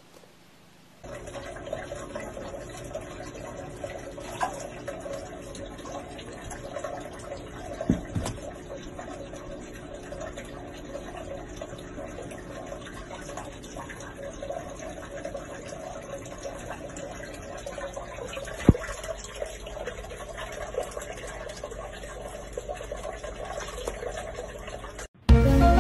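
Steady rushing, water-like noise with a few sharp clicks.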